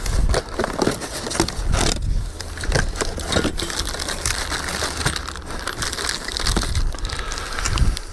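Cardboard box flaps and packing dividers rustling, scraping and crackling as they are pushed aside and parts are handled, with many sharp little clicks throughout. A plastic parts bag is handled near the end.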